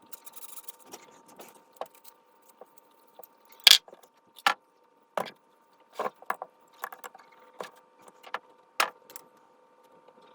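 Irregular clicks and knocks of a hard plastic and metal hammer drill and an accessory being handled and tried in place, with one louder knock a few seconds in.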